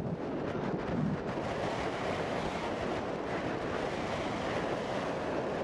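Wind blowing across the camera microphone: a steady rushing noise.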